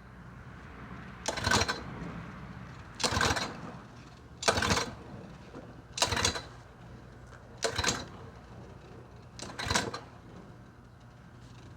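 Recoil starter rope pulled six times on a lawn mower engine, each pull a short whirring crank of about half a second, with another pull starting at the end. The engine turns over without firing, which is taken to be a lack of fuel.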